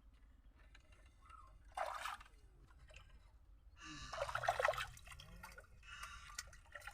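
Water splashing and dripping, with two louder splashes, one about two seconds in and a longer one about four seconds in.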